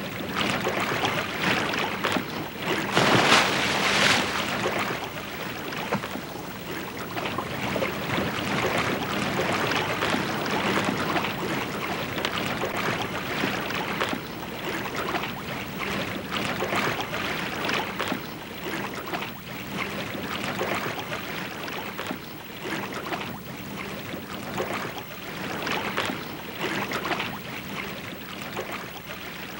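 Sea water sloshing and splashing around a swimming dog, heard at the waterline, with a louder splash about three seconds in.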